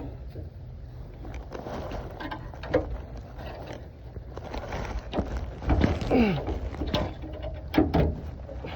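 Metal clicks, knocks and scrapes of a screwdriver prying at a stuck spare-tire carrier under a pickup truck, in irregular bursts with the loudest knocks about six seconds and eight seconds in.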